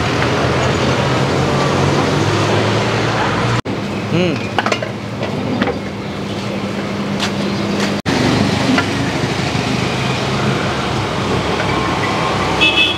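Busy street ambience: traffic noise and background chatter of people, with a short vehicle horn toot near the end.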